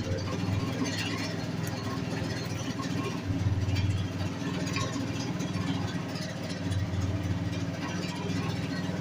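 An engine running steadily at idle, a continuous low hum, with faint voices in the background.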